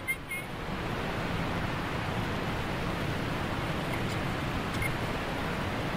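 Steady, even rush of river water around an inflatable raft, with a short bump just after the start.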